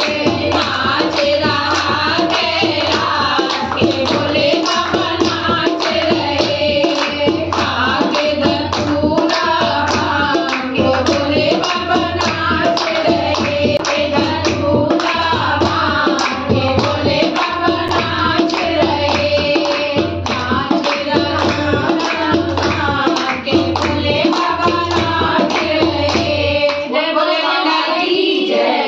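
A group of women singing a Hindi devotional bhajan to Shiva together, with a dholak drum and hand clapping keeping a steady beat. The drum drops out near the end.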